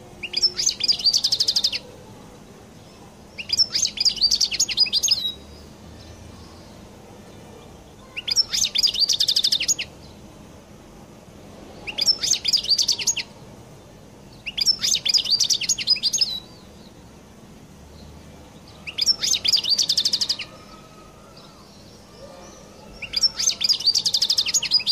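European goldfinch singing: seven short phrases of fast, high twittering song, each about one and a half seconds long, with pauses of a couple of seconds between them.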